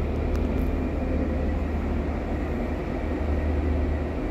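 Scania 360 coach's diesel engine idling, a steady low hum heard from inside the passenger cabin.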